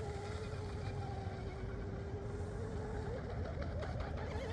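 Oxidean Scorpion RC outrigger boat's 4082 2000kV brushless motor running at speed across the water: a steady whine that dips slightly, then begins to climb in pitch near the end.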